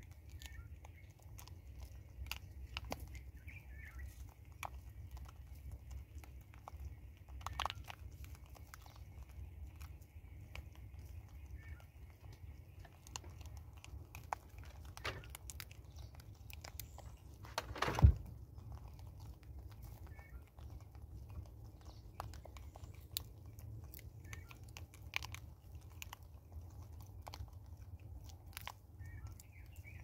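Vervet monkeys eating bird seed from a tree-stump feeder close to the microphone: crunching and chewing, with many small clicks as they pick through the kernels. About 18 seconds in there is one much louder sharp knock.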